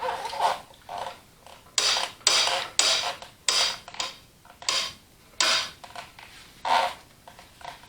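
Metal clattering and scraping in a string of about eight short bursts, as the rod and parts of the Allis Chalmers WD45's right-hand brake linkage are worked loose and handled.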